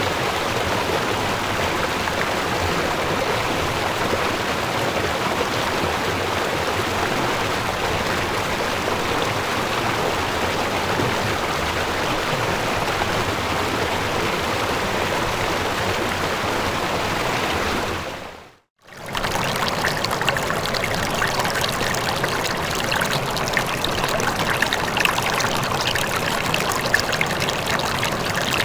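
River water flowing and splashing in a steady rush. About two-thirds of the way through it fades out to a moment of silence, and another river recording starts, with brighter, crisper splashing.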